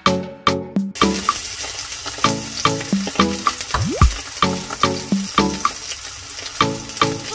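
Steak sizzling as it sears in a hot frying pan, the sizzle starting suddenly about a second in, over background music with a steady beat.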